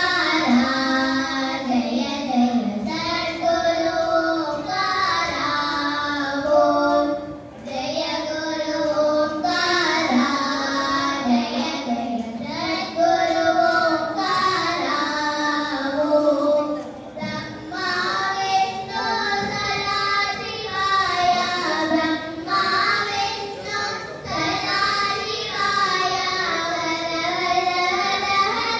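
Two young girls singing a Carnatic vocal piece together through microphones, the melody sliding and ornamented in long phrases with brief pauses for breath.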